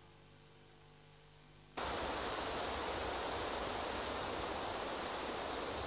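A faint steady electrical hum. About two seconds in, a loud, steady rushing noise cuts in suddenly and holds even.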